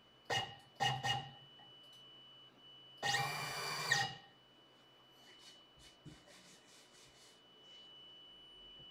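Stepcraft M1000 CNC router's stepper-driven axes jogging the milling head: two short whirring moves in the first second or so, then a longer move of about a second around three seconds in. Faint light rubbing or scratching sounds follow over a couple of seconds, with a faint steady high tone underneath.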